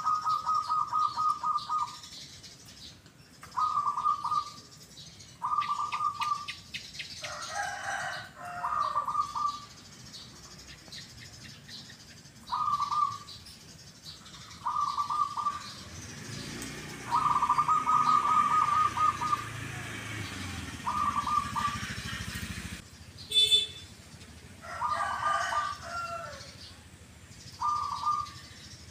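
Zebra doves (perkutut) cooing in short, quickly pulsed phrases repeated about every two seconds, a song the keeper writes as 'kuk, kuk'. Higher chirping calls from other cage birds come twice in between, and a low rumble sits under the cooing for a few seconds past the middle.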